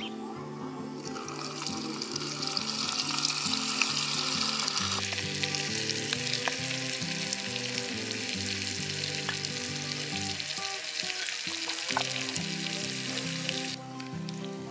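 Food frying in hot oil in a miniature clay pot, a dense steady sizzle that cuts off abruptly near the end. Soft background music plays underneath.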